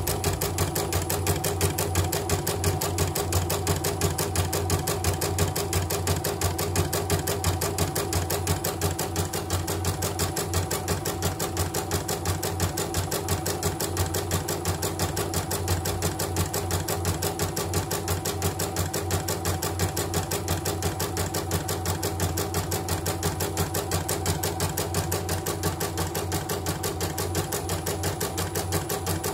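CNY portable embroidery machine stitching at a steady speed, its needle bar giving a fast, even clatter with no pauses. It is the test run of a machine that had been completely dead and now works.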